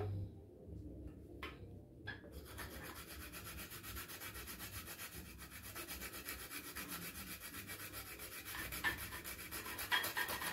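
A block of homemade chocolate being grated on a flat metal hand grater. A few separate scraping strokes come first, then from about two seconds in a quick, steady run of rasping strokes.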